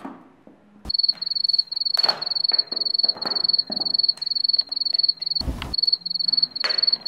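Cricket chirping: a high, rapid pulsed trill that starts suddenly about a second in and keeps going, broken briefly by a thump about five and a half seconds in.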